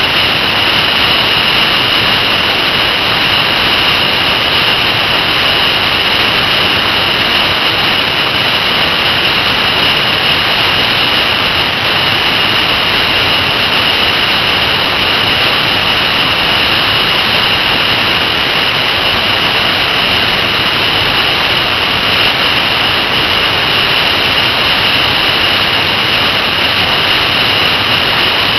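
Steady loud rush of wind and road noise from an electric motorcycle riding at highway speed, with a steady high hiss on top and no engine note.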